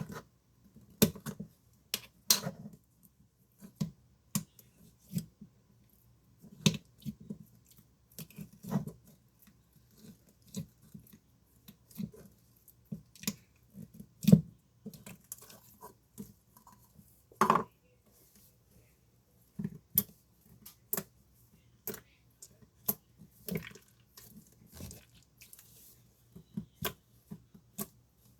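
Slime being squeezed and worked by hand: short, irregular squishes and sticky pops with brief pauses between them.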